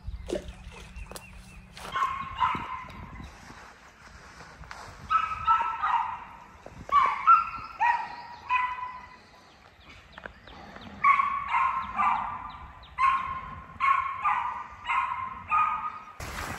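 A dog barking over and over in runs of two to four barks with short pauses, starting about two seconds in. It is barking up at a raccoon hiding in a tree.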